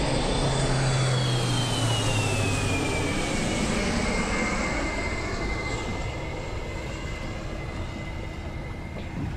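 Air Force airplane flying low overhead. Its engine whine drops in pitch as it passes, then holds a steady lower note while slowly fading away.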